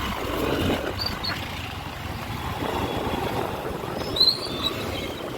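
Riding noise from a motorcycle on the move: steady wind rush and road and traffic noise. Two short high chirps, one about a second in and one near the end.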